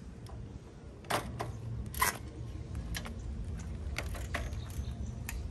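Scattered sharp clicks and ticks, the loudest about one and two seconds in, over a steady low rumble.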